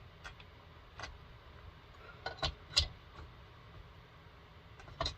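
Scattered sharp clicks and light metallic knocks from a chainsaw guide bar and chain being handled and fitted onto the saw, the loudest pair about two and a half seconds in and another near the end.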